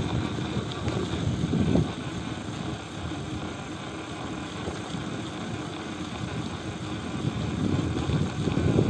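Wind buffeting the microphone of a bicycle-mounted phone during a downhill ride, a gusty low rumble mixed with tyre noise on asphalt. It eases about two seconds in and builds again near the end.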